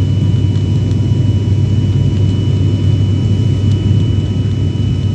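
Airliner cabin noise during the landing: a loud, steady low rumble of the engines and airflow, with a faint steady high whine above it.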